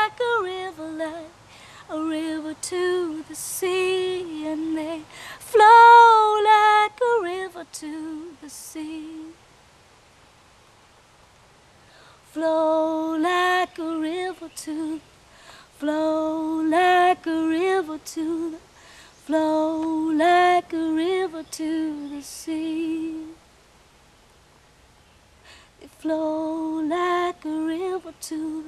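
A woman singing a cappella, with no accompaniment, in slow phrases with held notes. She breaks off for two short pauses of a couple of seconds each.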